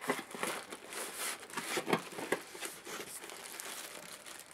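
Plastic wrapping crinkling and foam packing rubbing as a boxed electronic unit and its bagged accessories are handled and lifted out. It is a stream of irregular crackles, busiest in the first couple of seconds.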